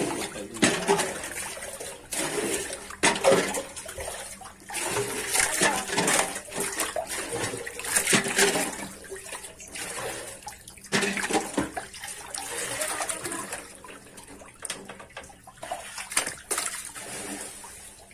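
Eel-like fish thrashing in shallow water, making irregular splashes that come in clusters, with a few sharper slaps among them.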